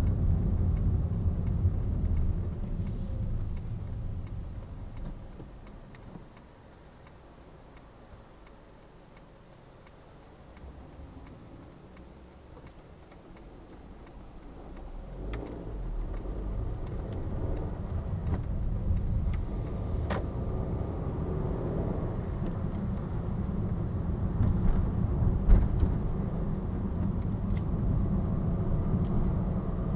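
Car cabin: engine and tyre noise dying away as the car slows to a stop, with the right-turn indicator ticking, then rising again as the car pulls away and gathers speed.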